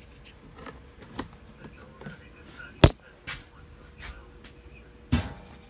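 Scattered light clicks and knocks of a plastic oil bottle and funnel being capped, picked up and set down on a workbench, with one sharp knock about three seconds in and another near the end.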